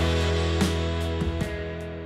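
Background music: held chords with a few sharp beats, slowly fading out.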